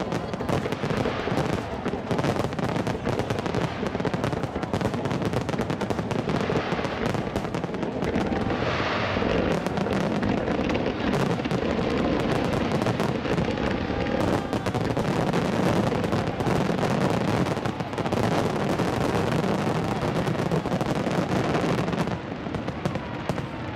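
A dense fireworks barrage: many shells bursting at once, a fast, unbroken run of overlapping bangs and crackle, easing slightly near the end.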